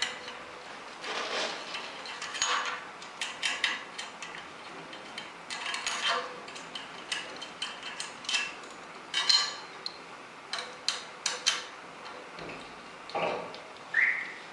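Rifle scope and its metal rail mount being handled on a table: irregular clicks, knocks and short scrapes of metal parts, with a brief squeak near the end.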